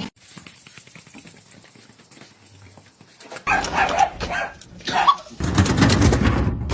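A dog barking: a few barks starting about halfway through, then a loud, noisy stretch near the end.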